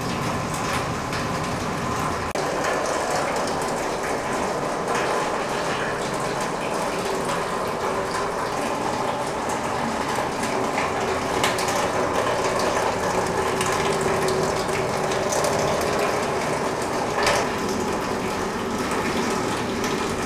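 Rain falling on a corrugated metal roof: a dense, steady patter of small ticks with no let-up.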